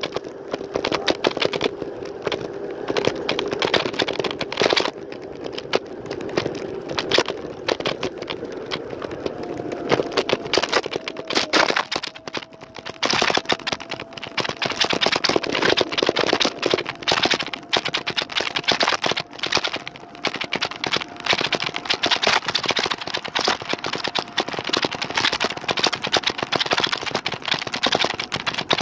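Lime rental electric scooter rattling and clattering continuously while being ridden. Under the rattle is a thin steady whine that steps up to a higher pitch about ten seconds in.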